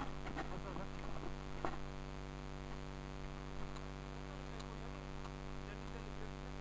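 Steady electrical hum, with a few faint clicks and rustles in the first two seconds.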